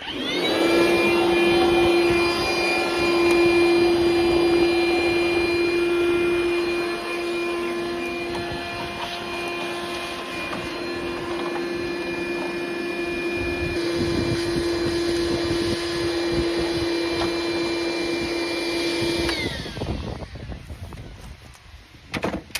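DeWalt portable vacuum cleaner switched on and running with a steady whine while clearing out bird's-nest debris. It is switched off near the end, and its pitch falls as the motor winds down.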